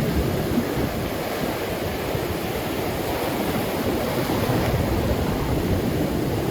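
Rough, typhoon-driven sea surf breaking in a steady wash of noise, with wind buffeting the microphone.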